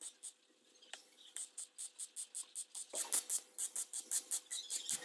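Electric arc welding on a steel tube frame joint: the arc crackles in quick, regular bursts, about five a second, starting about a second in.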